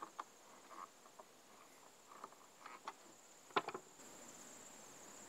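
Soft clicks and taps of wires, a plastic terminal block and a plug being handled, the loudest about three and a half seconds in, over a steady high-pitched insect trill.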